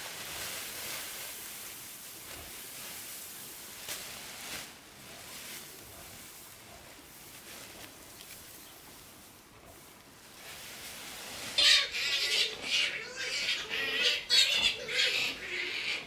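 Geese calling in a loud, harsh, repeated flurry over the last few seconds, after a stretch of faint steady hiss.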